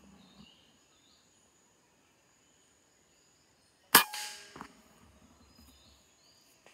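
A single shot from a PCP air rifle about four seconds in: one sharp crack followed by a brief ringing that dies away within about half a second.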